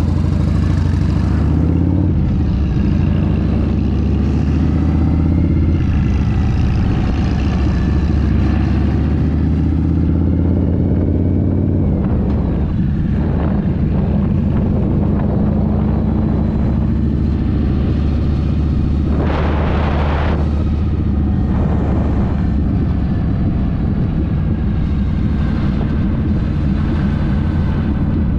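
Harley-Davidson Fat Boy's Evolution V-twin engine pulling away and climbing in pitch through the gears over the first several seconds, then running steadily at cruising speed. A brief rush of noise about two-thirds of the way through.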